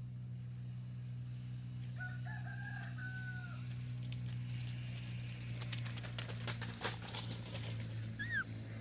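A rooster crows once in the background about two seconds in, over a steady low hum. A run of sharp clicks and rustles follows, then a short falling chirp from a rose-ringed parakeet near the end.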